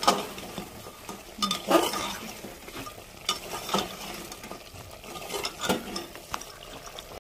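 Steel slotted ladle stirring and scraping mutton and ground spices around an aluminium pressure cooker over a steady sizzle of frying, with several sharp metal-on-metal scrapes and knocks. This is the spices being fried into the meat (bhuna).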